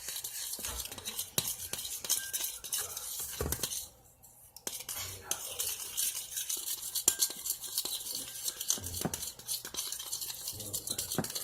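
A utensil stirring and scraping a thick mix of glue and lotion in a bowl, with small clinks against the bowl; the stirring stops briefly about four seconds in.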